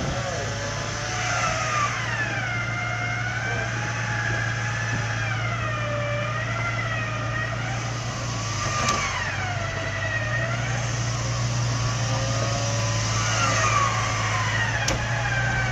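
Jeep Cherokee XJ's engine working at low speed over a rocky off-road climb, its revs rising and falling again and again over a steady low drone, with two sharp knocks along the way.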